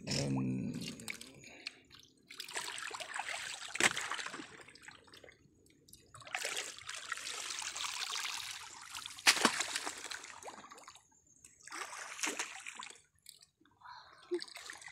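Shallow water splashing and sloshing in uneven bursts as people wade and haul a seine net through it, with two sharp clicks about four and nine seconds in.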